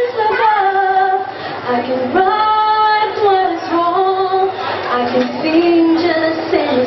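A woman singing a melody, holding several long notes.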